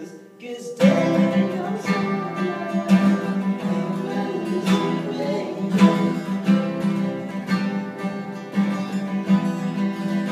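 Two acoustic guitars strummed together in a steady rhythm, with a voice singing along.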